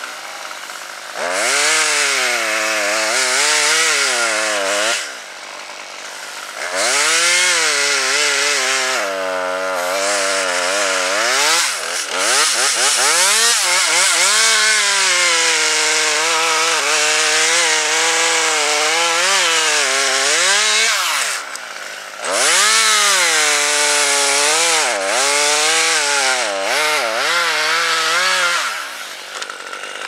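Husqvarna T540 XP top-handle two-stroke chainsaw cutting into a maple trunk, its engine pitch swinging up and down under load. It drops back to a lower idle briefly about five seconds in, again about twenty-one seconds in, and near the end.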